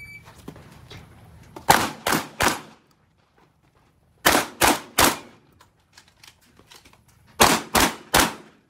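A short electronic shot-timer beep right at the start, then nine shots from a Benelli M2 semi-automatic shotgun, fired in three quick strings of three, each shot about a third of a second apart, with pauses of about two seconds between strings.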